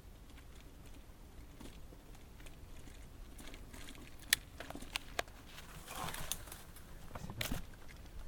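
Leaves and twigs brushing and scraping against the camera, a faint rustling broken by scattered sharp clicks, the loudest about halfway through and near the end.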